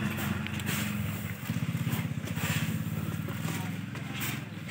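An engine running steadily nearby with a fast, even pulse, with faint swishes of paddy grain being handled over it.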